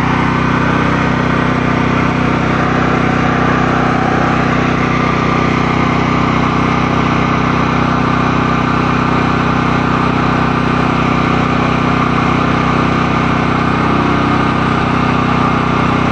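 Portable generator's engine running loud and steady at a constant speed.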